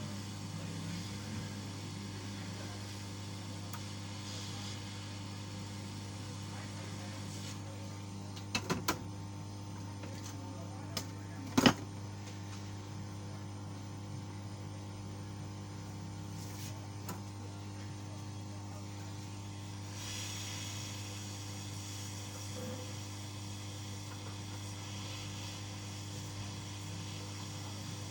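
Steady low electrical hum with a few short clicks: a quick cluster about a third of the way in, and one sharp, louder click a few seconds later.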